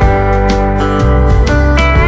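Background music: acoustic guitar with slide guitar playing a steady, upbeat tune.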